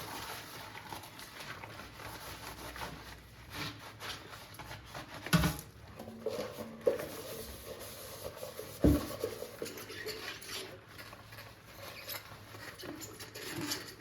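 Kitchen items handled and wiped near the sink: light clatter and rubbing, with two sharper knocks about five and nine seconds in.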